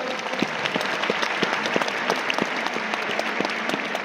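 Stadium crowd applauding: many hands clapping at once in a dense, steady patter.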